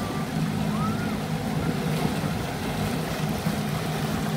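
Motorboat engine running at a steady low hum, with water and wind noise.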